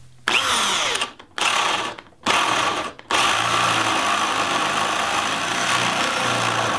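Power drill with a 1.5-inch spade bit boring into a wooden board: three short bursts in the first three seconds as the hole is started, then a steady run as the bit cuts in.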